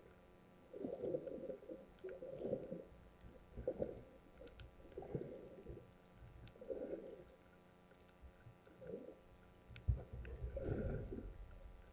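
Muffled underwater swishing and sloshing of water against an action camera's waterproof housing, in surges about every one to two seconds as the swimmer moves, with a sharp knock about ten seconds in.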